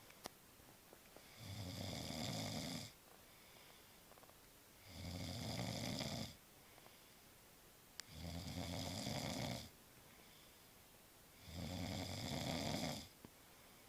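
A man snoring in a steady rhythm: four long snores, each about a second and a half, coming about every three and a half seconds with quiet gaps between.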